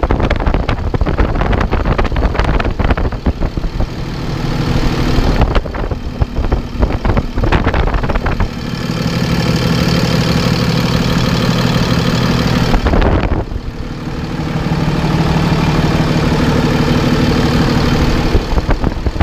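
Cummins 6.7-litre turbo diesel idling steadily, heard close up with the hood open. Its PTO belt and clutch are new and do not slip.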